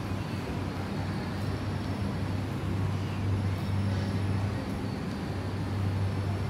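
Steady low hum and even background noise of an almost empty shopping-mall corridor, with a few faint ticks.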